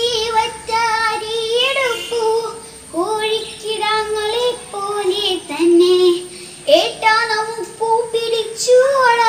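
A young girl singing a Malayalam poem to a chanting melody, in short phrases with brief breaks between them.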